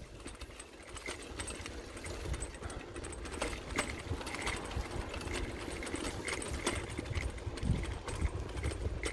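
A bicycle being ridden: low rumble from the tyres and wind, with quick irregular ticking and rattling from the bike.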